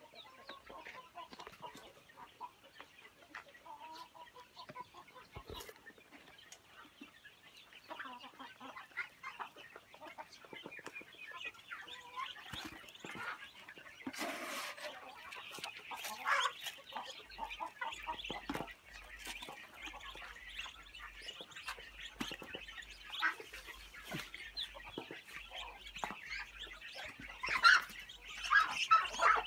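A flock of young poultry, Muscovy ducklings with chickens, calling without a break in many short high peeps and clucks. The calling grows louder in the second half, with a few louder calls near the end.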